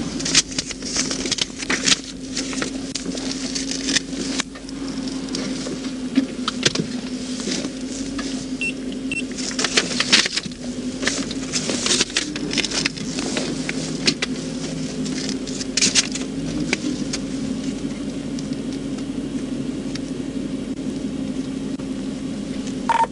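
A vehicle running with a steady, constant-pitched low hum, overlaid by frequent sharp clicks and rustling close to the microphone.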